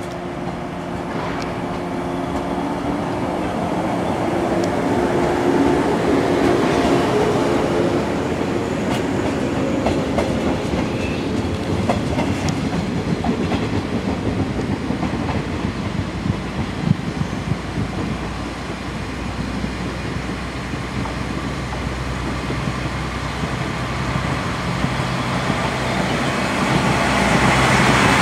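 Trains at a station: a green 113-series electric train moving with gliding motor tones and wheel clatter over rail joints, then a Shigaraki Kohgen Railway SKR310-series diesel railcar running in alongside the platform. The railcar's engine hums low and grows louder near the end as it draws close.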